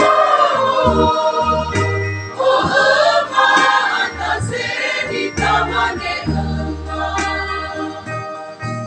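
Church choir singing a hymn in parts, with long low bass notes underneath that change with the phrases.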